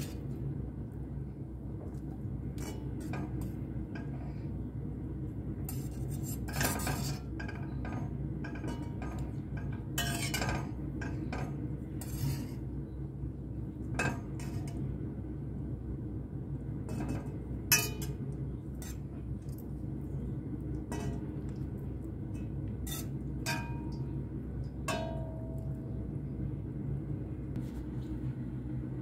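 Metal tongs clinking against a stainless steel pot and a china plate as boiled chicken drumsticks are lifted out of the broth, in irregular clinks and knocks over a steady low hum.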